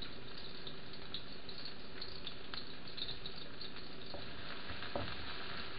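Onions sautéing in hot oil in a frying pan, sizzling steadily with a few faint crackles.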